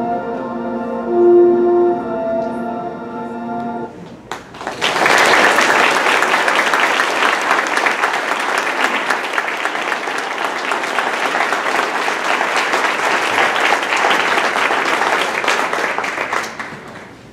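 Held notes of background music ending about four seconds in, then a room of people applauding steadily, the clapping dying away near the end.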